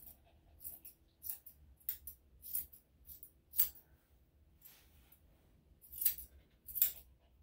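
Grooming shears snipping through a Bichon/Shih-Tzu's head and ear hair: a run of short, crisp snips, about one to two a second.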